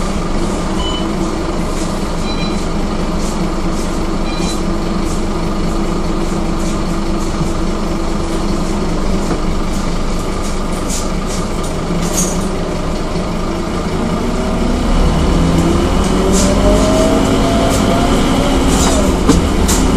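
Scania K230UB city bus's diesel engine idling with a steady drone, then from about fifteen seconds in getting louder as the bus pulls away, with a whine rising in pitch. A few short faint beeps sound in the first seconds.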